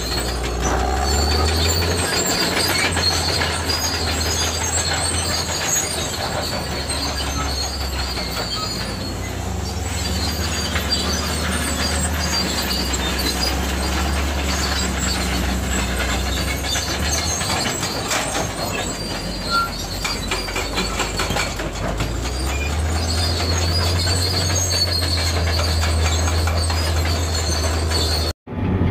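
Heavy earthmoving machinery working: a steady low diesel drone with high metallic squealing, of the kind crawler tracks make. The sound drops out for a moment just before the end.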